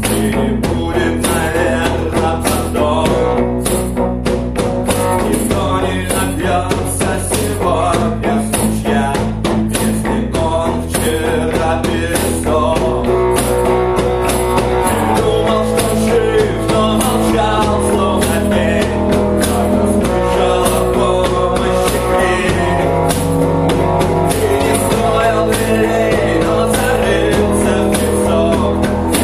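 Rock song played on acoustic instruments: regular cajon strikes, strummed guitar and a bass guitar line moving between notes every second or two.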